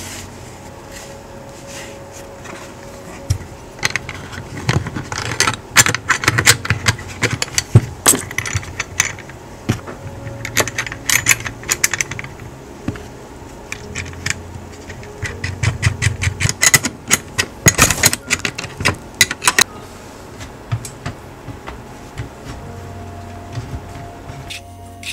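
Small metal bicycle parts, a saddle clamp with its bolts and nuts, clinking and rattling as they are handled and fitted to a saddle, in quick runs of sharp clicks that stop a few seconds before the end.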